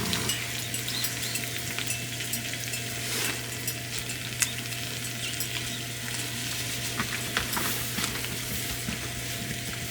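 Food sizzling in a hot pan: a steady hiss with scattered small pops.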